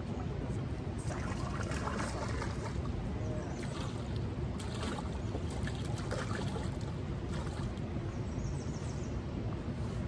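Steady rush of flowing river water, with brief trickling sounds now and then.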